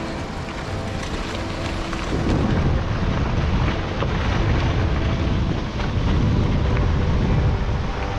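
Rushing river rapids making a steady roar, with wind buffeting the microphone in gusts from about two seconds in.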